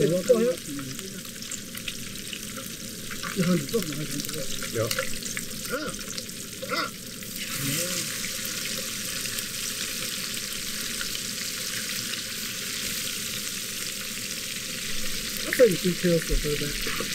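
Trout fillets sizzling as they pan-fry in hot oil in a skillet, a steady hiss that grows stronger about halfway through. A few short low sounds break in, loudest near the end.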